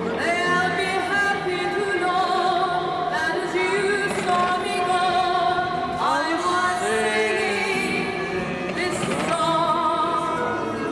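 Music with a solo voice singing long held notes in an operatic style, with vibrato and gliding between notes.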